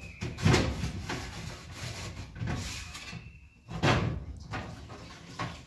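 Kitchen doors or drawers opening and shutting: several knocks and bangs with clatter between them, the loudest about half a second in and again near four seconds. A brief high steady tone sounds a little past the middle.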